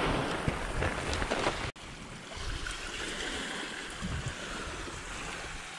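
Steady outdoor wind and water noise, with rustling and handling sounds in the first second and a half. About 1.7 s in the sound cuts off abruptly, then resumes as a softer, even wash.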